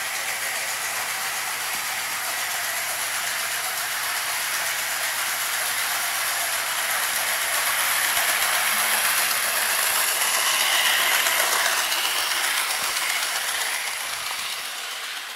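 HO scale model train, a small steam locomotive pulling passenger cars, running along its track with a steady mechanical running noise. It grows louder about two-thirds of the way through and fades toward the end.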